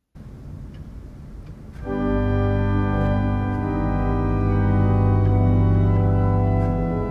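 Organ music: after a quiet low start, full sustained chords come in about two seconds in and are held steadily.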